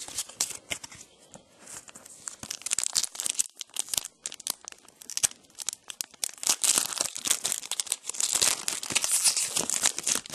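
Foil wrapper of a trading card pack being torn open and crinkled by hand: a dense run of crackling and tearing, loudest in the second half.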